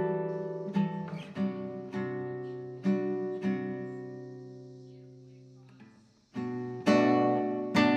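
Background music: acoustic guitar strumming chords, each chord ringing out and fading away. The playing dies down almost to silence about six seconds in, then starts again with new chords.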